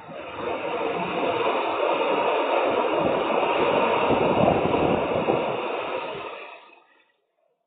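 Thunder rumbling, building for a few seconds and dying away about seven seconds in, heard through a CCTV camera's microphone.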